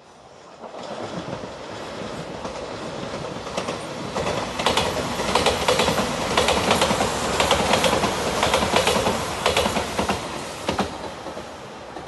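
Five-car Shiokaze limited express electric train passing by, its wheels clattering over the rail joints. The rumble builds from about half a second in, is loudest through the middle with quick clicks, and fades away near the end.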